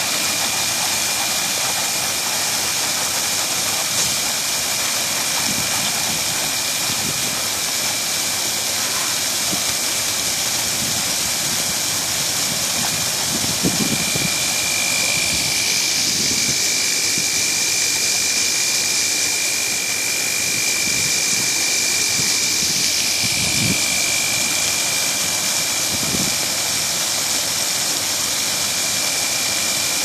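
Automatic truck tyre washer running: many pressurised water jets from the nozzle bars spraying and splashing onto the steel grates in a loud, steady rushing hiss, with a thin steady whine underneath.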